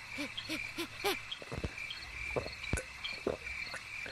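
Cartoon sound effects over a steady background of chirping crickets: four quick bubbly blips in the first second, then a string of short sharp pops.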